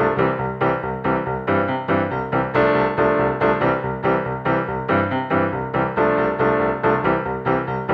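Piano or keyboard music: a steady run of quick notes, about three a second, with chords.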